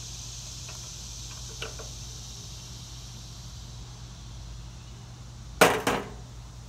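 Pipe wrench worked on a stuck fitting of an old hydraulic cylinder: a few faint metal ticks, then two sharp metal clacks in quick succession near the end.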